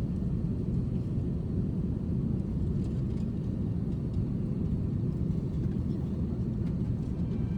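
Steady low rumble of engine and airflow noise heard inside the cabin of an Airbus A380-800 airliner.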